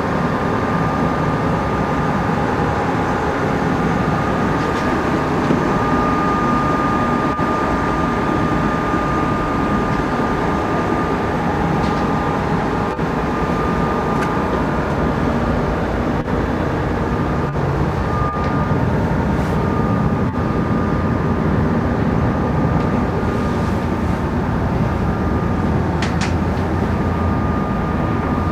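Steady, loud rumble of a yacht under way, with a thin steady whine running through it and a few faint ticks.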